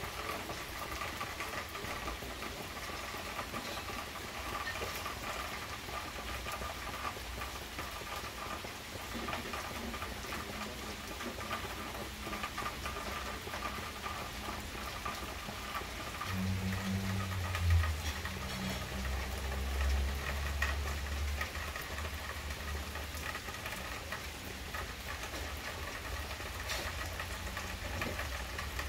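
Steady rain pattering on a glass patio table top and a wooden deck, with many small drop ticks. Around the middle a low rumble swells for several seconds and then fades.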